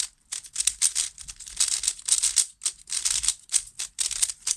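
QiYi Warrior S 3x3 speed cube being turned quickly, its plastic layers clacking in rapid runs of turns with short pauses between them. The cube is still tight and turns blocky after breaking in.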